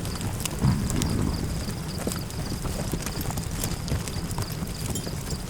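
Campfire crackling, with irregular sharp pops over a steady low rush of wind. A faint high chirping pulses evenly throughout.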